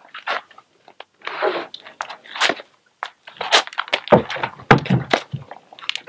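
Irregular scrapes, creaks and knocks as a small motorbike is lifted and set onto scrap lumber on an upturned plastic tote, with a few heavier thumps about four to five seconds in.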